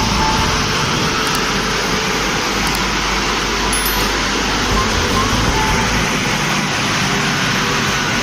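Steady rushing noise of a train running past, even and unbroken, with no horn sounding.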